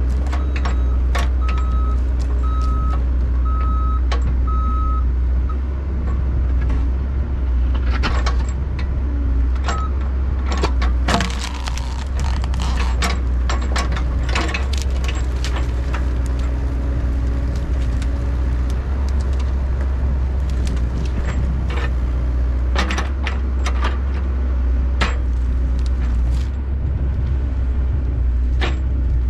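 Mini excavator engine running steadily under work, with a string of short warning beeps in the first few seconds and scattered sharp clanks and knocks, thickest in the middle.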